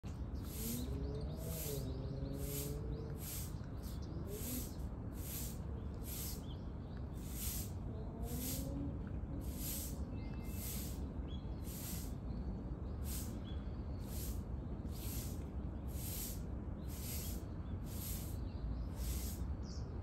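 Outdoor ambience with animal calls: a raspy high hiss pulsing evenly about one and a half times a second over a steady low rumble, with a few low gliding calls in the first three seconds and again around eight seconds in.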